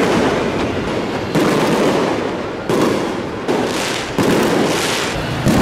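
Aerial fireworks bursting: a string of sudden bangs about a second apart, each one trailing off before the next.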